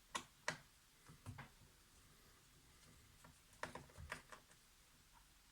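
Light, sharp plastic clicks and taps from handling a laptop's keyboard and case: two shortly after the start, a couple more about a second in, then a quick cluster about four seconds in.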